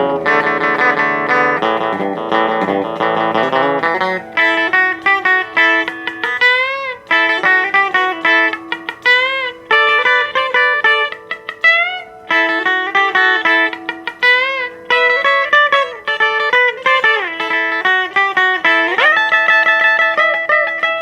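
Gretsch G6120 hollow-body electric guitar playing surf rock: full chords for the first few seconds, then a single-note melody with bent, wavering notes, and two deep swooping pitch dips near the end.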